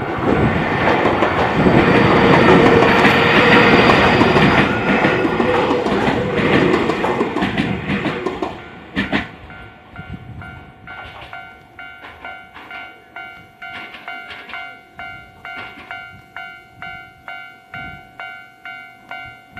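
A Keio Inokashira Line 1000-series electric train passes close by at a level crossing, loud for about eight seconds and then fading away. After it has gone, the level-crossing alarm bell keeps clanging at about two strokes a second.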